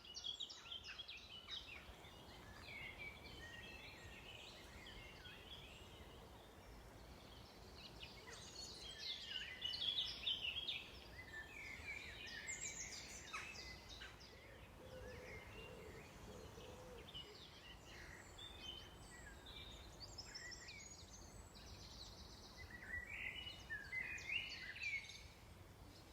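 Several songbirds singing at once: overlapping chirps and short trilled phrases, loudest about ten seconds in, over a steady low rumble.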